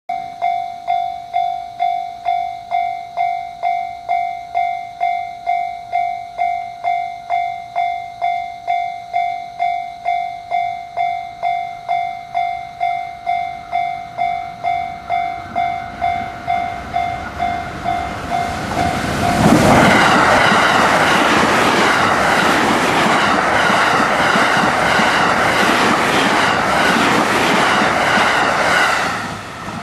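A Japanese level-crossing alarm rings steadily, about two strikes a second. About two-thirds of the way in the Sunrise Seto/Izumo sleeper train (a 285 series electric train) rushes through the crossing, loud, with wheels clicking over the rail joints. Its noise stops abruptly near the end.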